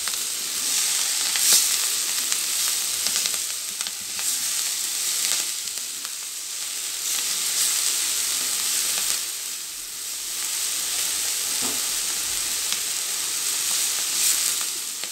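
Ponnaganti greens and dal sizzling in hot oil in a kadai as they are stirred with a silicone spatula. The sizzle swells and eases with each turn, and the spatula scrapes lightly now and then.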